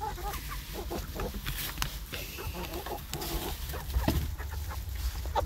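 Several chickens clucking in short, scattered calls, with a brief rising call about four seconds in and light clicks among them.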